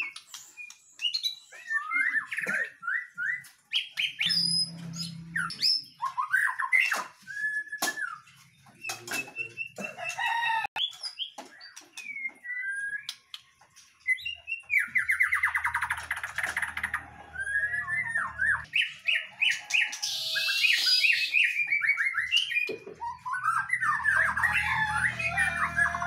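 A caged songbird singing: a varied string of short whistled phrases and chirps, broken by fast rattling trills.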